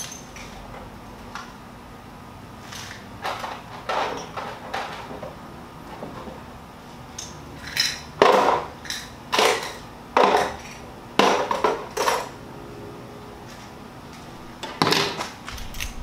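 Clinks and knocks of metal tools and parts being handled: about fifteen short clatters, the loudest bunched together around the middle.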